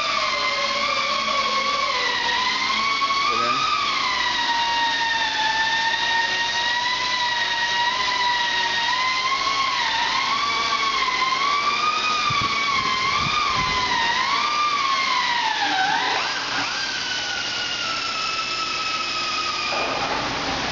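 Power tool running with a loud, steady high whine whose pitch wavers slowly up and down. It sags lower about sixteen seconds in and the whine breaks off near the end.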